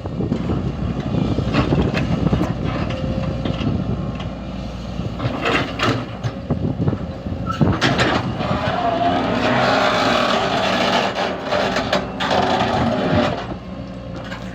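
Hydraulic excavator running as it digs a foundation pit: a steady engine drone, with a run of sharp knocks in the middle and a harsher, higher-pitched stretch after them.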